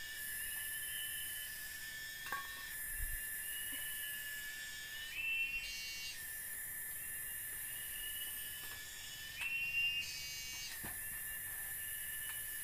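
Insect chorus in a forest: a steady high-pitched trill, with a higher buzzing that swells and drops away every two to three seconds and a few short clicks.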